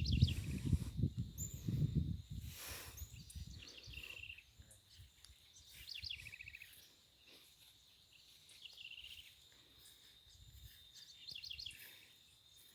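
A bird calls with a short, rapid series of high notes, repeated about every three seconds, over a faint steady high tone. A low rumble fades out over the first two seconds.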